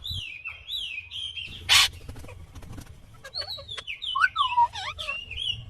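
Indian ringneck parrot (rose-ringed parakeet) calling: a run of short, rising-and-falling whistled chirps, with one loud, harsh screech just under two seconds in and a busier burst of warbling calls in the second half.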